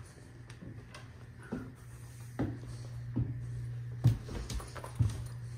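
Footsteps climbing hardwood stairs, a thump about every second, the loudest about four seconds in, over a steady low hum.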